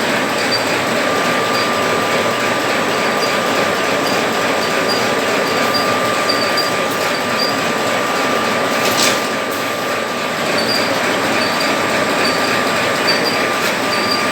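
Automatic paper-napkin packaging machine running: a steady, dense mechanical noise with a thin constant whine and a light ticking repeating about twice a second. A short sharp burst cuts through about nine seconds in.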